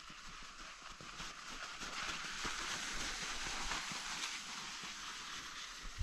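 Crunching and scraping over crusty, granular snow as a dead tree branch is dragged across it with footsteps alongside, getting louder about two seconds in.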